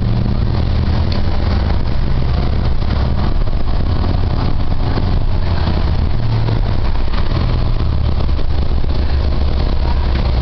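Cummins ISL9 diesel of a New Flyer XD40 Xcelsior city bus running, heard from inside the passenger cabin: a steady low drone with cabin noise and light rattles over it.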